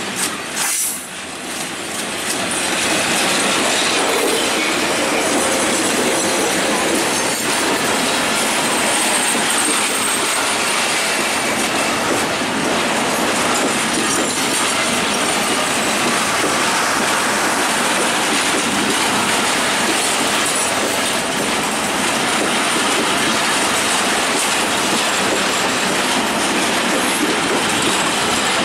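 A Bangladesh Railway broad-gauge passenger train running past close by: the steady rolling noise of coach wheels on the rails. It grows louder over the first few seconds as the train comes alongside, then holds loud and even.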